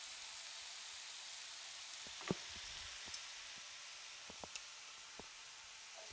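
Sliced carrots, peppers and onions sizzling in oil in a frying pan: a steady hiss with a few scattered small pops, the loudest about two seconds in.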